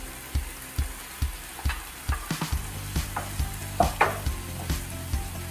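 Kimchi and cooked rice sizzling in a cast-iron skillet as the rice is scraped in from a metal bowl and stirred with a wooden spatula, with a few sharp scrapes and knocks of the spatula against the pan.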